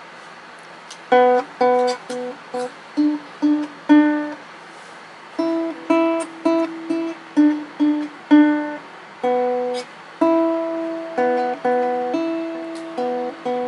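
Nylon-string classical guitar played with the fingers: a simple tune of separate plucked notes, each ringing briefly and fading, starting about a second in.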